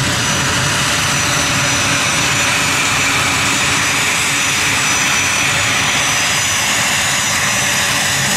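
A Fairchild Republic A-10 Thunderbolt II's two TF34 turbofan engines running at taxi power close by, a steady rush with a high whine over it.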